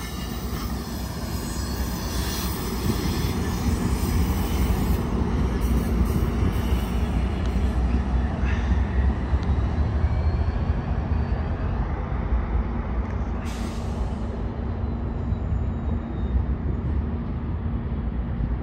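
Trinity Railway Express commuter train, an EMD F59PH diesel locomotive with Bombardier bi-level cars, running past with a steady low rumble of diesel and wheels. Faint high wheel squeal in the first half, and a short hiss of air about two-thirds through.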